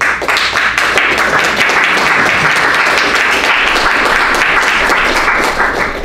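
Audience applauding: a dense patter of many hands clapping that starts suddenly and eases off near the end.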